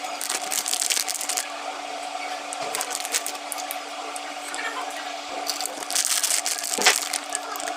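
Sweet wrappers and packaging being handled and opened: irregular crinkling and crackling, busiest a little after the middle, over a steady hum.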